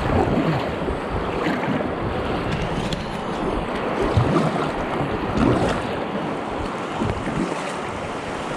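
Rushing river water splashing around a small inflatable boat, with wind buffeting the microphone.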